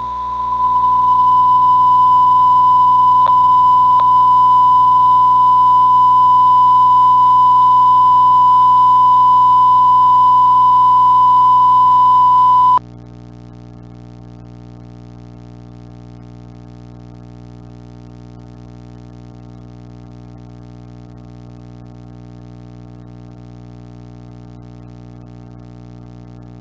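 A steady sine-wave broadcast tone that fades in, holds for about thirteen seconds and cuts off abruptly. It leaves a quieter, low synthesizer drone made of several held notes.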